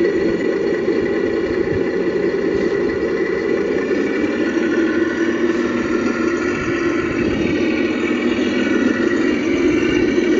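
Simulated truck diesel engine sound from a Beier USM-RC-2 sound module, played through the speaker of an RC scale MAN KAT1 8x8 truck as it crawls along. It runs steadily and grows a little louder in the second half.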